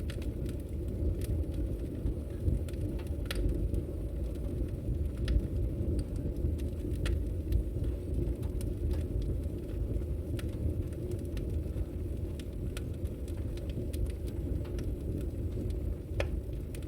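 Wood fire burning in a fireplace: a steady low roar of the flames with irregular sharp crackles and pops scattered through it, a few louder ones standing out.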